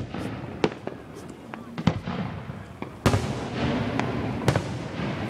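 Aerial firework shells bursting: four sharp bangs a second or so apart, the loudest about three seconds in, trailing off slowly after it.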